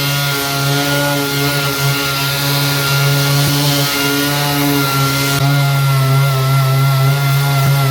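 Power sander running steadily on body filler: a constant motor hum with a hiss of sanding over it.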